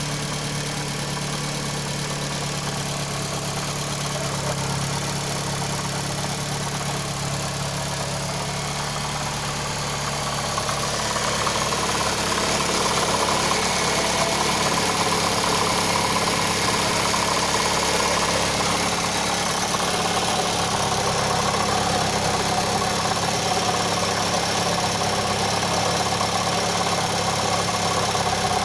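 Mitsubishi 4B11T turbocharged inline-four running at idle, with a knock whose origin the owner cannot locate. It gets somewhat louder about ten seconds in.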